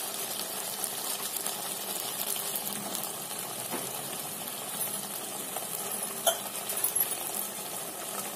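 Masala simmering with a low, steady sizzle in an aluminium pressure cooker under freshly added soaked rice, with a few sharp metal clinks, the loudest about six seconds in.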